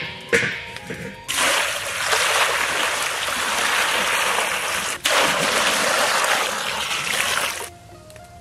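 Water pouring and splashing steadily, starting about a second in and stopping shortly before the end, with a brief break around the middle. A few knocks come just before the pour.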